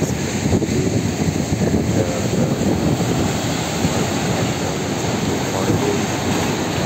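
Sea waves breaking and surf washing in foam over the shore, a steady loud rush with wind rumbling on the microphone.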